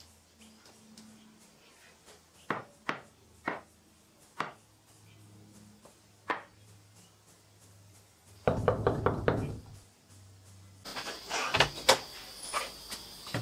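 Sharp single knocks of wooden slats being picked up and set down on a workbench, then about a second of dense wooden clattering as several slats knock together. Near the end come knocks and rattles of a door being opened.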